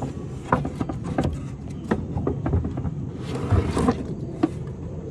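Shelf panel knocking and scraping against the legs of a mud kitchen as it is worked into place between them: a series of light knocks, with a brief scrape about three and a half seconds in, over a low steady rumble.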